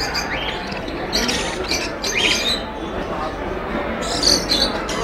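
Caged budgerigars and other pet parrots chirping and squawking in several short, high bursts over a steady background din of more birds.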